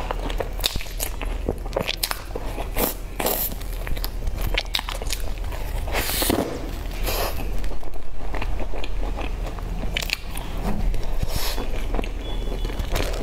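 Biting and chewing crumb-topped cream-filled buns, the crumbly crust crackling in many quick clicks between softer mouth sounds.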